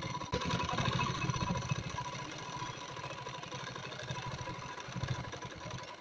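Gopal sewing machine running steadily, a rapid stream of needle strokes as it stitches a new zipper into trousers. The stitching is a little quieter after about two seconds and stops at the very end.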